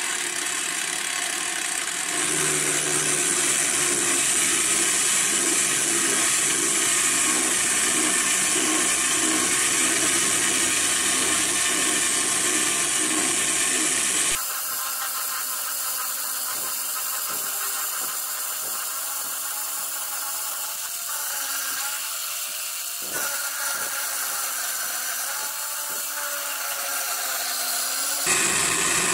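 End mill in a Parkside direct-drive pillar drill converted to a mill, running and cutting across a metal bar on an XY table: a dense, steady cutting noise with some chatter, which this light setup is prone to. The sound shifts abruptly about halfway through, becoming quieter and thinner with a few knocks, and again just before the end.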